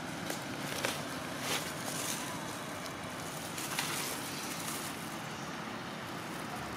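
Steady outdoor background hiss with a few short, faint crackles in the first four seconds.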